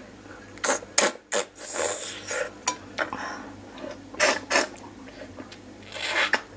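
Close-up wet sucking and slurping as soft raw crab meat, pickled in fish sauce, is sucked out of pieces of blue swimming crab shell, with a few sharp crackles. It comes in short irregular bursts, with a longer suck near the end.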